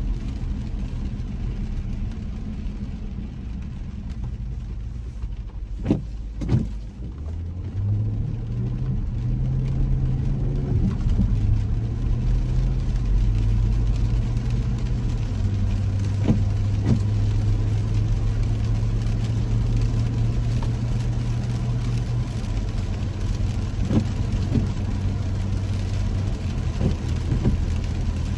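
Car engine and road noise heard from inside the cabin: a low idle, then about seven seconds in the engine note rises as the car pulls away and settles into a steady hum that shifts pitch a few times. A few short knocks, mostly in pairs, sound over it.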